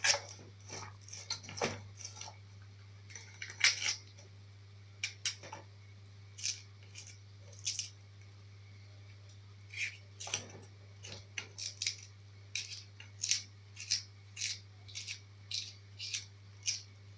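Kitchen knife cutting vegetables such as onion and pepper on a cutting board: irregular sharp chops, roughly one or two a second, over a steady low hum.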